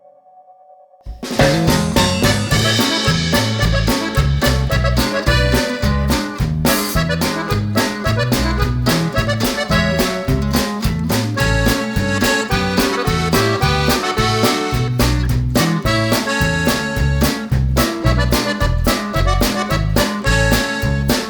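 Background music: a dance remix with a steady, heavy bass beat. It starts about a second in, after a brief near-silent gap.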